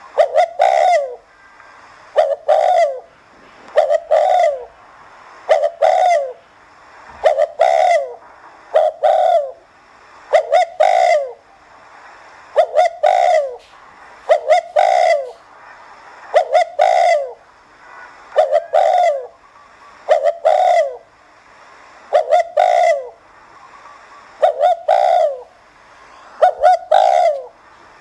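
Spotted dove cooing over and over, one short phrase of quick, slightly falling notes about every two seconds.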